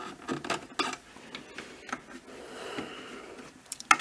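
Soft clicks and knocks of a Midland WR100 weather radio being handled while it scans for stations, with a faint hiss for about a second near the middle.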